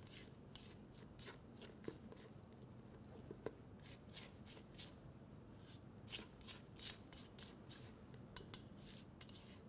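Spatula folding cake batter in a stainless-steel mixing bowl: faint scraping strokes, about three a second, in short runs.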